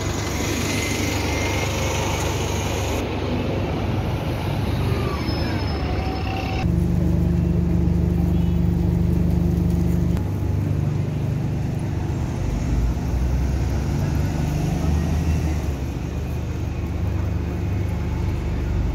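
Street traffic: London double-decker buses and other road vehicles running past, a steady low engine hum under road noise.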